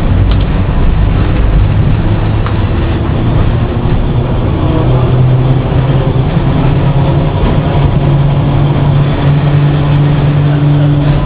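Lisbon tram no.730 running along street track, heard from inside its cab: a steady, loud rumble of wheels on the rails with a low, even hum.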